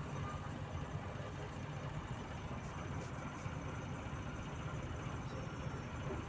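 Volzhanin-5270 city bus driving, heard from inside the passenger cabin: a steady low engine drone with road noise.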